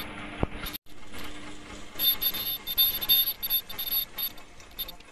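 Earloop face-mask making machine running with a steady hum and a single click, then a series of short, irregular high-pitched squealing chirps between about two and four seconds in.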